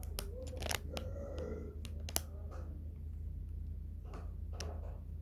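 A few sharp clicks and taps over a steady low hum, the loudest about two seconds in.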